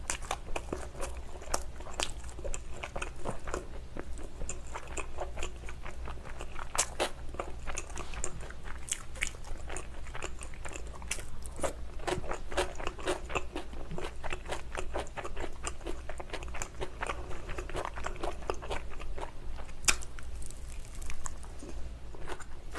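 A person chewing and crunching on pizza close to the microphone: a steady run of small, crisp irregular crackles, with a few louder crunches about seven seconds in and near the end.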